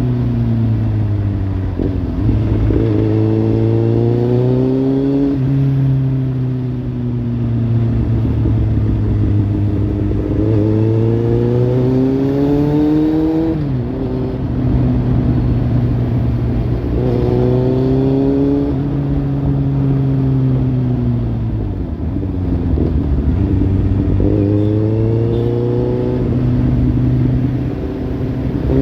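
Kawasaki Z800's inline-four engine through a Lextek slip-on exhaust, revving up and easing off again and again, its pitch rising slowly and falling several times, with one sudden drop in pitch about halfway through.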